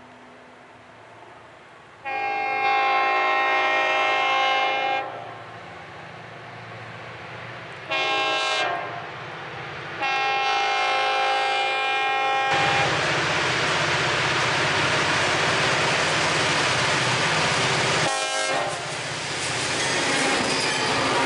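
Air horn of a train led by two EMD diesel locomotives, sounding for a grade crossing: a long blast, a short one, then another long blast. About halfway through, the horn gives way to the loud rush of the locomotives and freight cars passing close by, with the clickety-clack of wheels on the rail joints.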